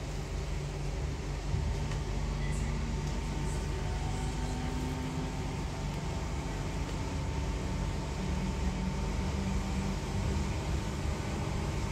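Cabin interior of a Class 323 electric multiple unit on the move: the steady rumble and hum of the running train, with a thin steady whine above it.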